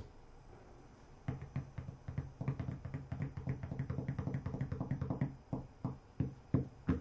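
Fingers drumming on a tabletop: a quick run of taps, about seven a second, for some four seconds, then a handful of slower, louder single taps near the end.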